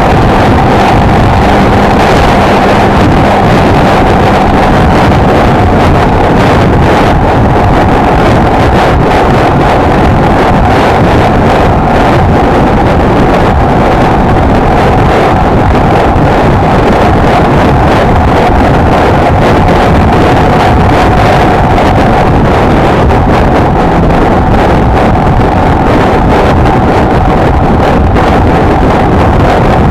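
Honda XLR125R's single-cylinder four-stroke engine running at a steady cruising speed, with a constant engine note, under loud wind noise buffeting the microphone while riding.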